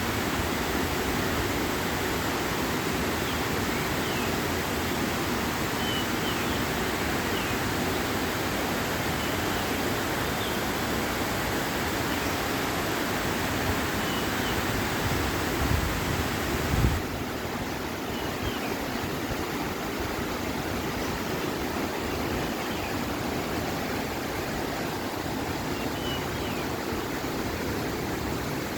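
Steady rushing of water, with a brief low thump about two thirds of the way through, after which the rush is a little softer. Faint short chirps come through the rush now and then.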